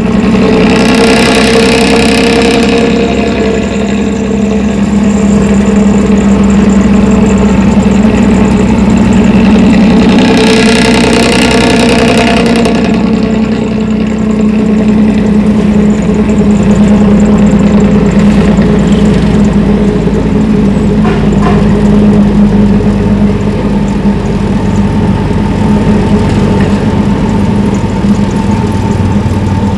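Intercity bus's diesel engine running with its 'ngorok' snoring exhaust, a steady low drone, with two brief louder surges about a second in and about ten seconds in.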